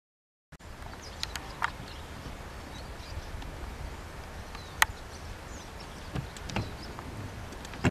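Outdoor ambience at the water's edge, starting after half a second of silence: a steady low rumble, faint high chirps and scattered sharp clicks, the loudest about five seconds in and another right at the end.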